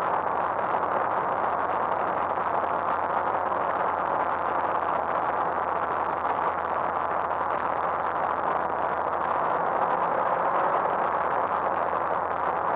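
Steady whirring rush of a drone's motors and propellers, picked up by its own onboard camera while hovering, with a faint steady hum beneath.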